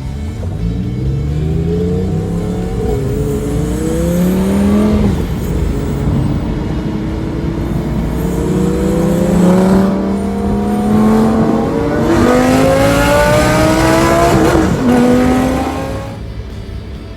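Lamborghini engine accelerating hard, its pitch climbing and then dropping sharply at each upshift, three or four times over. It fades away about a second before the end.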